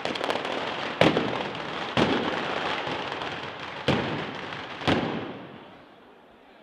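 Batteria alla bolognese, a chain of firecrackers strung along the street and set off in sequence: rapid crackling punctuated by four heavy bangs about a second apart, the crackle dying down near the end.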